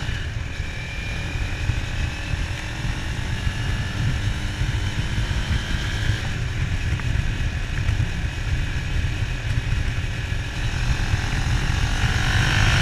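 Motorcycle engine running under way, buried in heavy wind rumble on the microphone. The engine note climbs slightly in the first second.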